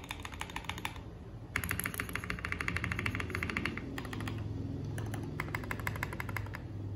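Fast typing on a mechanical keyboard fitted with FSA-profile PBT double-shot keycaps: quick runs of key presses in three bursts with short pauses between them. The reviewer calls the sound of these keycaps warm and deep, as PBT caps tend to be.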